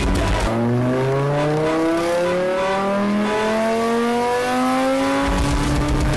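Car engine revving up, its pitch rising slowly and steadily for about four and a half seconds with no gear changes. Music stops about half a second in and comes back near the end.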